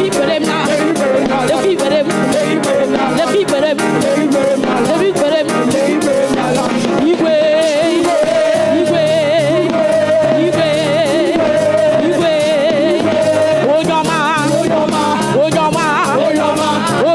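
Live gospel praise music: a band with steady drumming and singing, with one long held note of wavering pitch in the middle.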